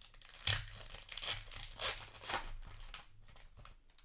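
Foil wrapper of a Magic: The Gathering booster pack being torn open and crinkled, in several short rips during the first three seconds.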